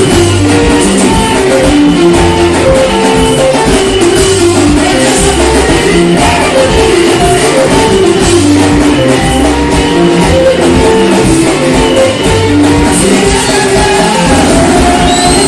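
Loud worship band music with bass, guitar and drums keeping a steady beat, and singing.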